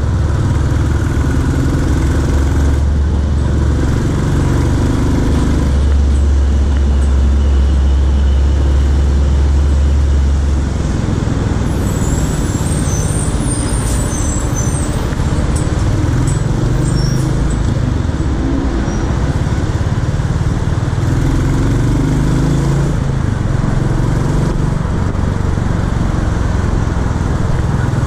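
Royal Enfield Classic 350's single-cylinder engine running under way in city traffic, with wind and road noise. Its low thump is heavier for the first ten seconds or so, then eases off.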